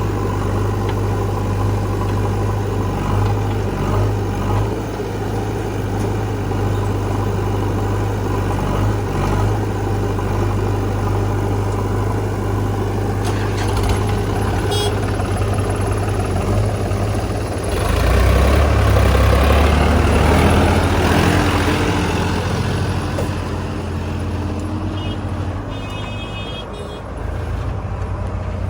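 Heavy diesel engines of earth-moving machinery running steadily at low revs, rising to a louder spell of revving about two-thirds through with a climbing, then steady, whine before settling back.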